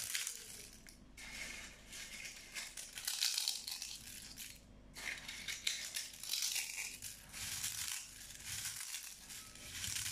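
Crisp fried papad being crushed by hand in a glass bowl: repeated bouts of dry crackling and crunching, one squeeze after another with short pauses between.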